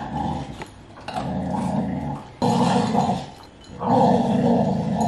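Border collie growling, three long growls with the last the loudest: a warning to the other dog while it eats from its bowl.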